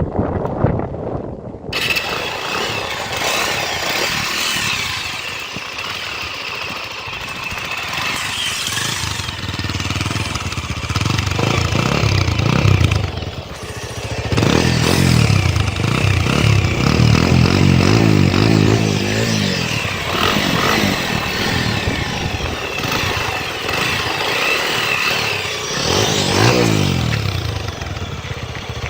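Motorcycle engine running and revved up several times, the pitch rising and falling, with the longest stretch of revving in the second half.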